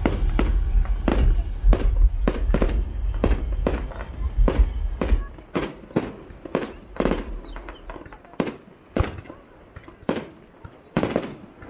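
Aerial fireworks shells bursting in a rapid series of sharp, echoing bangs, about two a second. Music with a heavy bass plays under the bangs and stops about five seconds in.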